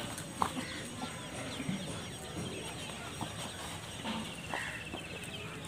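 Rhesus macaques moving about and handling food on a board: faint scattered taps and clicks over a low background hum, with a short high trill about four seconds in.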